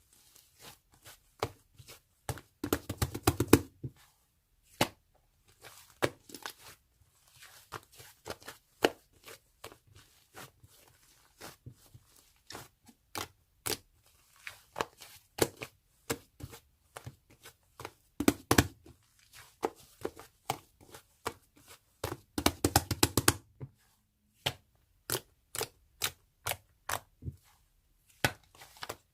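Close-up handling sounds: many sharp clicks and taps at an irregular pace, with two denser bursts of crackling or tearing, about three seconds in and again after about twenty-two seconds.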